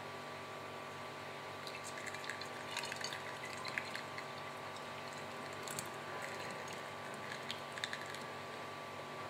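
Oat milk being poured through a funnel into a glass bottle, with faint irregular splashing and trickling from about a second and a half in until near the end as the bottle fills. A steady background hum runs under it.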